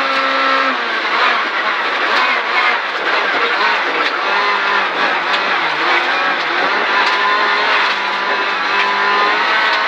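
Rally car's engine running hard on a gravel stage, heard from inside the cockpit over a steady noise of tyres and gravel. Around four seconds in the engine note dips and climbs again as the car slows for a junction and pulls away.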